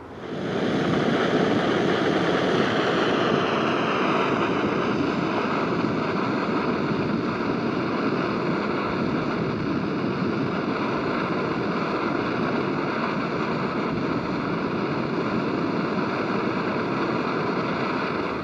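Gas camping stove burning under a lidded cook pot, a steady roar that comes in suddenly. A faint whine in it drops slightly in pitch over the first few seconds, then holds.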